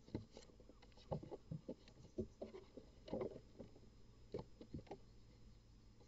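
Faint, irregular knocks, taps and scuffles of a barn owl struggling with a downy chick on the floor of a nest box, its feet and wings striking the box and the nest debris. The knocks are busiest around three seconds in.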